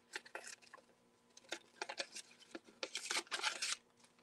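Scissors snipping around a paper pattern: a run of short, irregular cuts, thickest about three seconds in, with the paper rustling as it is turned.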